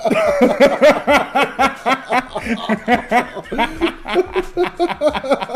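Two men laughing hard together, a long run of quick ha-ha pulses.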